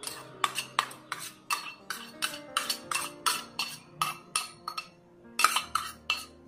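A steel spoon tapping and scraping against a small stainless steel bowl, knocking out the last of its contents: a quick series of sharp metallic clinks, about three a second, with a short pause near the end.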